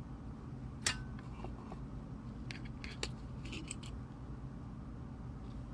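A few faint clicks and taps, the sharpest about a second in, over a steady low hum: small hand tools being handled while soldering a pad on a circuit board.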